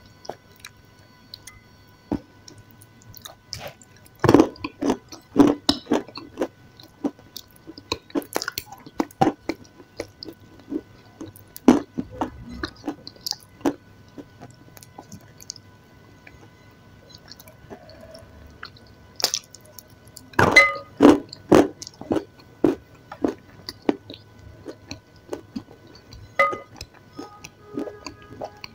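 Close-up mouth sounds of eating a soft, creamy white food from a wooden spoon: wet smacking and sticky clicks that come in irregular clusters, busiest a few seconds in and again about two-thirds through.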